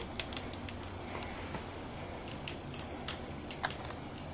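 Irregular light clicks and ticks, several close together about half a second in and a few more spread later, over a low steady hum.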